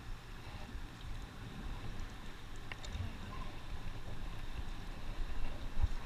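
Steady rush of a river running over a gravel riffle, with a low rumble of wind on the microphone and a soft thump near the end.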